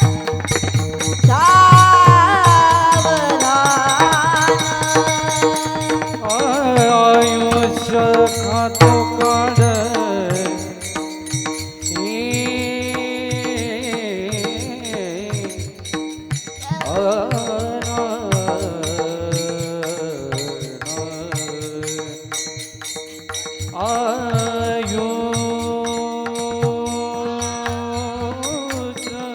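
Devotional kirtan singing: a voice holds long, high, drawn-out notes in about five wavering phrases over a steady drone accompaniment. Drumbeats come right at the start.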